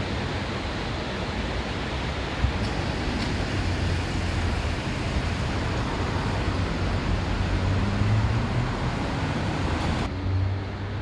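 Town street traffic: cars driving along the road, heard as a steady wash of tyre and engine noise with a low rumble. The hiss thins abruptly about ten seconds in.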